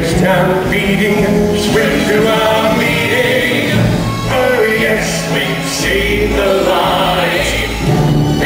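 Musical-theatre number: an ensemble of voices singing together in chorus over a band accompaniment.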